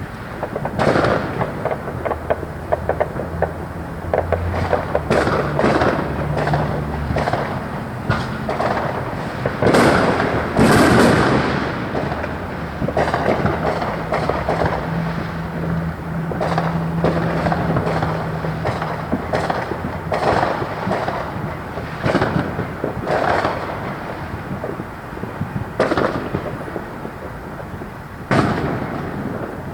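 Fireworks going off in quick succession: a dense run of bangs and crackling with no real pause, the loudest burst about ten seconds in.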